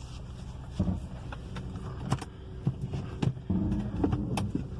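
Audi A3's engine running, heard from inside the cabin, with several sharp clicks and knocks scattered through; the engine's low rumble rises about three and a half seconds in.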